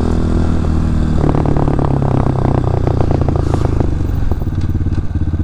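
Honda CRF230F dirt bike's single-cylinder four-stroke engine running while being ridden, its exhaust note turning rougher with rapid firing pulses about a second in.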